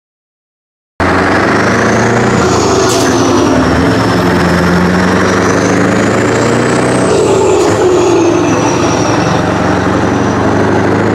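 Scania 143M truck's 14-litre V8 diesel running loud and steady as the truck pulls away, with a faint high whine that slowly rises and falls above it. The sound cuts in suddenly about a second in.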